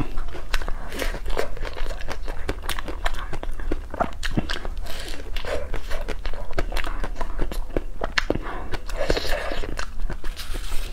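Close-miked biting and chewing of a crisp waffle ice cream cone: a steady run of sharp crunches.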